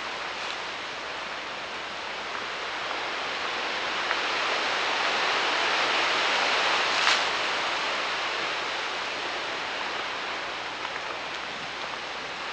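Wind rushing through the forest's leafy trees: a hiss that swells over a few seconds, peaks about seven seconds in, then eases off. A single sharp click comes at the peak.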